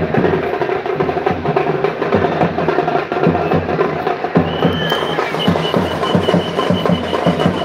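Percussion-led music with a fast, steady drum beat. A thin high tone comes in about halfway through and breaks into quick pulses.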